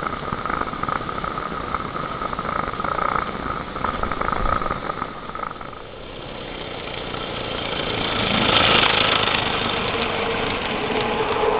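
Bellflower Cricket III live-steam locomotive: first it stands steaming, a steady hiss with a high steady tone. Then it runs along the track toward and past, the sound building to its loudest about nine seconds in.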